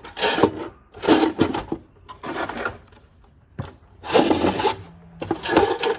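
Worn anchor rope dragged out of a Minn Kota Deckhand 40 anchor winch in about five short hand pulls, each a rough drag of rope over the housing, with a single sharp knock near the middle.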